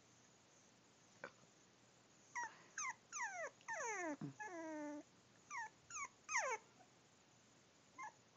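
Puppy whimpering: a run of short, high whines that fall in pitch, with one longer whine near the middle.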